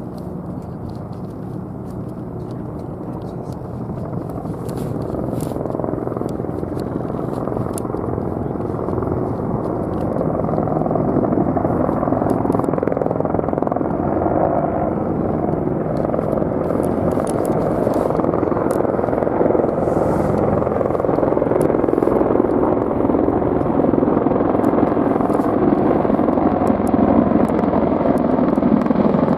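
MH-60M Black Hawk military helicopters approaching overhead, their steady rotor and engine noise growing louder throughout.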